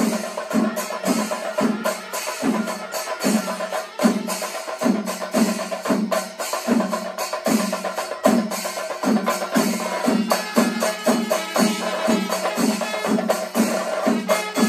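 Chenda melam: a large ensemble of Kerala chenda drums beaten with sticks, heavy strokes falling about two to three times a second under fast, dense stick rolls. Ilathalam cymbals clash throughout.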